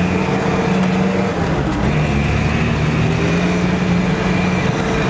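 Sherp ATV's diesel engine running steadily as the vehicle drives, heard from inside the cab, its note holding fairly even with slight rises and dips in pitch.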